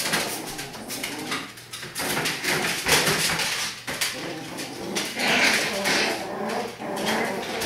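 A litter of six-week-old schnoodle puppies playing, with small whimpers and growly coo-like sounds. Many small clicks and scratches of claws on the plastic pool run underneath, and a louder squeal comes about five and a half seconds in.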